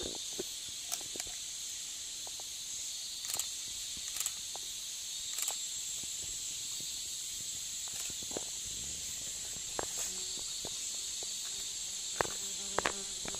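Steady high-pitched drone of a forest insect chorus, with scattered small clicks and splashes as a pangolin wades into a shallow stream and swims. The clicks come thicker and louder near the end.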